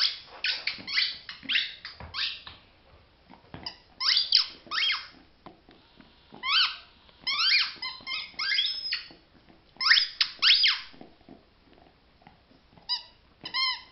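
Squeaker ball being chewed by a Rottweiler, squeaking in about five bursts of rapid, high squeaks with short pauses between. Each squeak dips a little in pitch.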